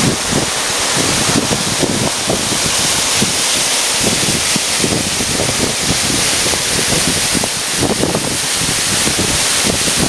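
Waterfall pouring into its plunge pool: a loud, steady rush of falling water, with churning splashes low down.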